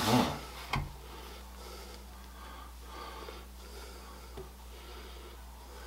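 Faint soft scraping of a spatula spreading cake batter flat in a baking pan, with a small click about a second in.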